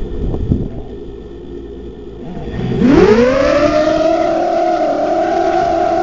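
Small racing quadcopter's brushless motors (DYS 1806, 3100 Kv) spinning up sharply about three seconds in for take-off: a fast-rising whine that then holds at a steady high pitch, loud from the camera on board. A short knock about half a second in.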